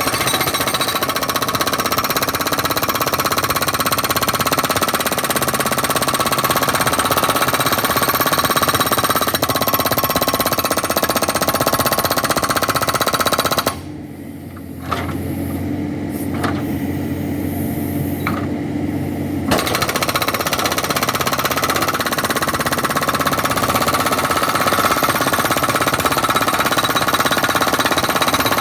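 Backhoe-mounted hydraulic rock breaker hammering rapidly and continuously. About halfway through it stops for roughly five seconds, leaving the backhoe's engine running with a few clicks, then starts hammering again.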